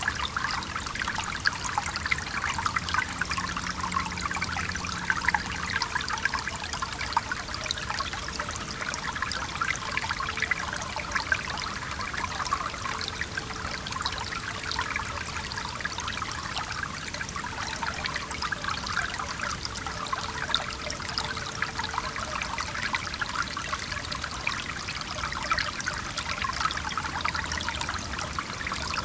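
A small stream babbling and trickling over rocks, steady throughout, with a faint distant hum of traffic in the background during the first part.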